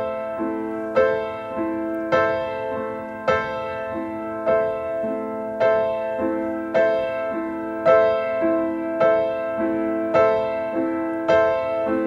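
Music: a keyboard instrument playing a slow, even pattern of struck notes, a little under two a second, as the instrumental opening of a song.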